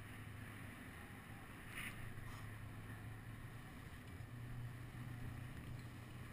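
Steady low hum of the parasail tow boat's motor heard from just above its deck, with wind on the microphone; a short rustle about two seconds in.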